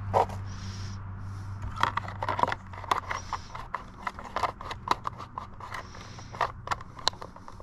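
An RC buggy and its 3S LiPo battery being handled as the battery is pushed into a tight chassis and tucked in: irregular clicks, knocks and short scrapes of hard plastic and carbon fiber parts.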